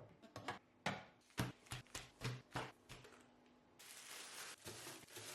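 Food items and containers being handled and set down during a fridge restock: a run of light knocks and clicks, then a steady hiss from about four seconds in.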